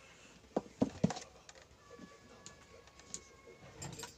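Handling noise of multimeter test leads and a power cord: a few light clicks and taps about a second in, then quieter scattered ticks.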